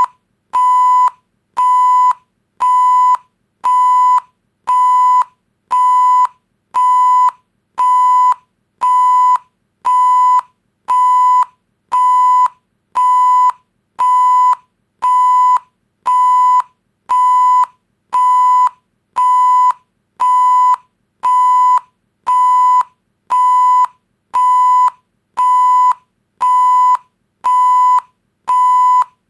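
Electronic beep sound effect: a single steady high-pitched tone repeating about once a second, each beep a little over half a second long with short silent gaps between.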